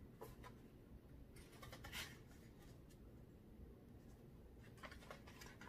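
Faint rustling and scraping of paper as a paperback book and papers are handled and looked over, with a few soft strokes around two seconds in and again near the end; otherwise near silence.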